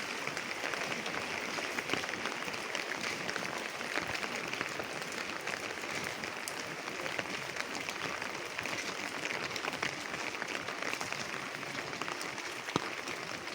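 Light rain (drizzle) falling steadily: an even hiss of many small drops ticking, with one slightly sharper drop-tick near the end.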